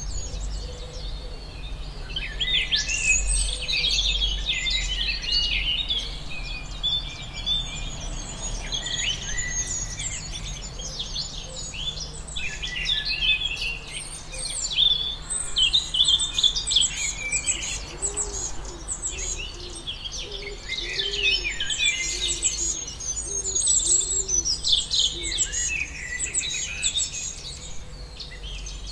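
Many birds chirping and singing at once, a dense chorus of short overlapping calls and trills that never pauses, over a steady low rumble.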